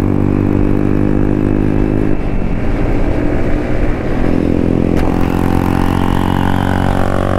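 155 cc single-cylinder motorcycle engine running steadily at an even pitch, with no revving up or down.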